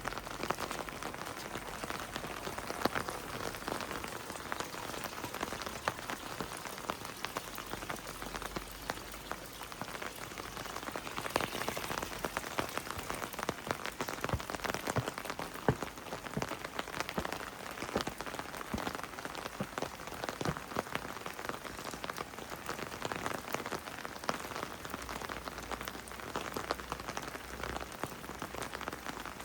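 Heavy rain falling steadily, with many single drops ticking sharply close by.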